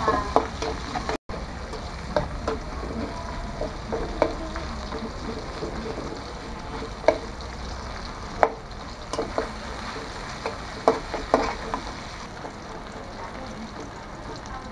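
Sliced onions sizzling in hot oil in a metal karai, stirred with a metal spatula that now and then clicks and scrapes against the pan. The sound drops out for an instant about a second in.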